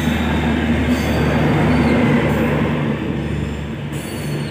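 Passenger train coaches rolling past close by with a steady rumble of wheels on rail. The noise eases away near the end as the last coach clears the crossing.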